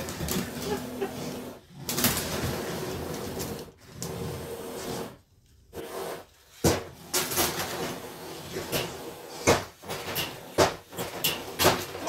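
Lego combat robots clattering and knocking as they ram each other, plastic bricks hitting bricks and the arena, over the whirr of their drive motors. There is a lull about five seconds in, then a run of sharp knocks.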